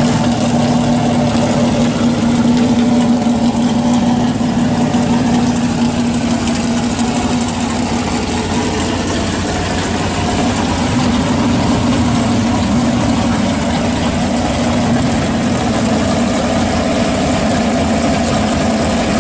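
Engine of a 1968 Chevrolet Chevelle SS drag car idling steadily.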